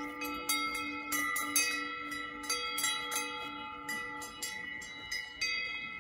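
Cowbells on grazing cows clanking in irregular strikes, each strike ringing on in several metallic tones.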